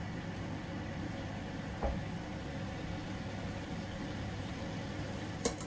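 Steady low hum of a kitchen appliance running. A light knock about two seconds in and a sharp metal clink near the end come from a stainless mesh sieve of drained greens knocking against a steel pot.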